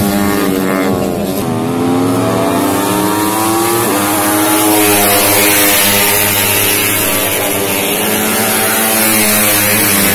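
Motorcycle engines revving, the pitch dipping and climbing several times over a steady lower engine note.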